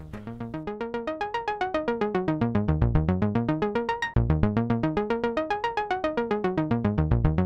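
Background electronic music: a rapid synthesizer arpeggio of repeating notes, about eight a second, fading in over the first second or so, with a brief break a little past the middle.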